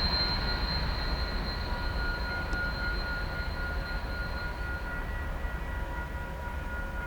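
Freight train rolling past: a steady low rumble of cars on the rails, with thin high squealing tones over it. The highest tone fades out about two-thirds of the way through as the sound slowly eases off.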